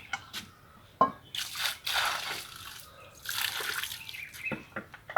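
Irregular wet splashing and dripping sounds mixed with sharp clicks and crunches.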